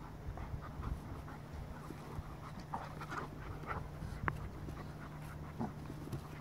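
A Goldendoodle and a Bernese Mountain Dog puppy play-wrestling, panting in short, irregular breaths as they mouth at each other. A single sharp click about four seconds in.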